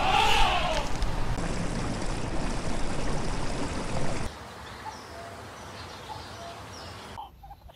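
Outdoor nature ambience: a short arched animal call ends in the first half second, then a steady rushing noise runs until about four seconds in, when it drops abruptly to a quieter hiss with a few faint bird-like chirps.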